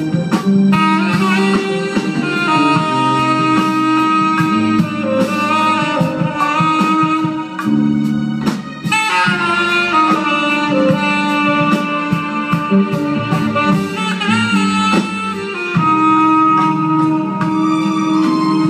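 Live jazz band: a tenor saxophone playing long held melody notes over bass and a steady drum beat.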